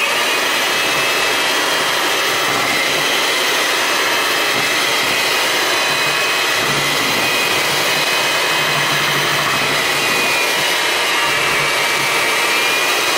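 Electric kitchen mixer running steadily at speed, beating cake batter: a constant motor whir with a faint high whine.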